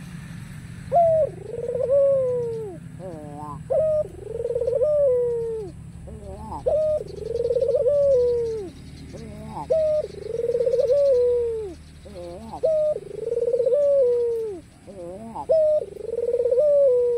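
White Barbary dove (ringneck dove) cooing repeatedly. Each coo is a short sharp note followed by a longer, rolling coo that falls away, about every three seconds, six times over.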